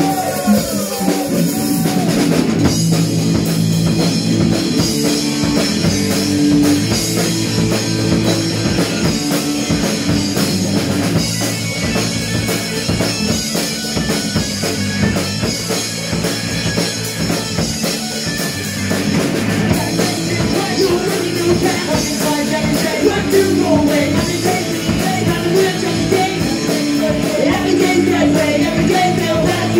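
Live rock band playing loudly on amplified electric guitars and a drum kit, with a voice singing in places.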